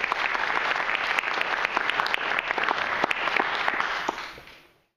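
Audience applauding, a dense patter of many hands clapping that fades out shortly before the end.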